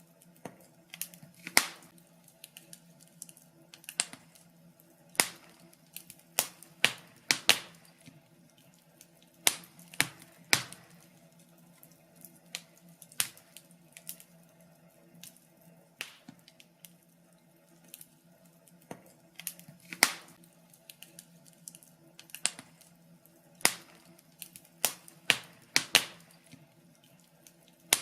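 Wood fire crackling: irregular sharp pops and snaps, some much louder than others, over a faint steady hum.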